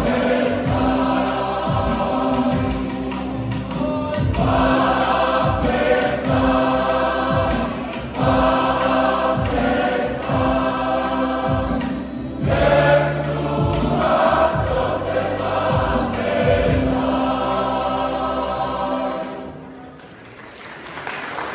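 Samoan church choir singing a gospel hymn with backing accompaniment, held bass notes and a regular beat. The singing fades out near the end.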